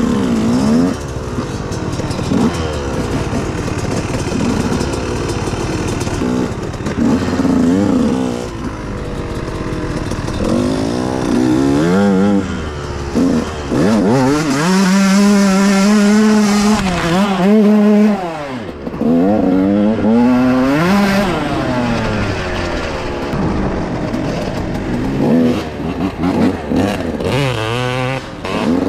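Dirt bike engine being ridden hard, revving up and dropping back again and again, held at high revs for a few seconds around the middle.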